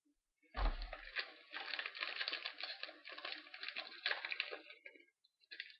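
Trading-card pack and cards being handled close to the microphone. After a low bump about half a second in, there is a dense run of crinkling and clicking for about four and a half seconds, typical of a foil pack wrapper being torn open and the cards pulled out.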